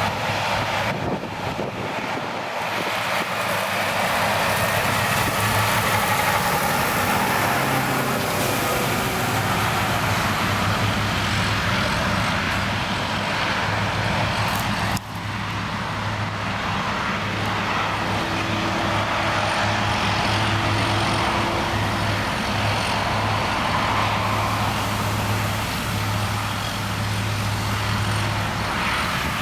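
Steady engine and motor noise with a constant low hum. It breaks off abruptly for a moment about halfway through, then carries on.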